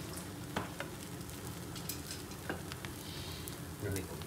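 Omelette frying in a pan, a faint steady sizzle with a few light clicks.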